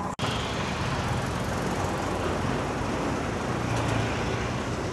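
Steady outdoor street noise with a low rumble. The sound cuts out for a moment just after the start.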